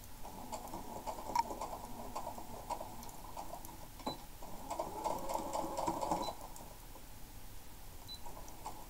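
Small electric household sewing machine stitching fabric, its needle mechanism clattering steadily. It runs louder for about a second around five seconds in, then quietens.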